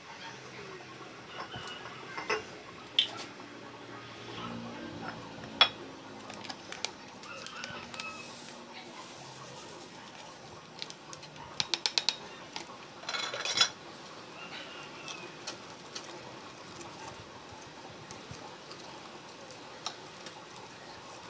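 Kitchen clatter of cookware and utensils: scattered clinks and knocks, with a quick run of clicks and a short rustling scrape a little past halfway.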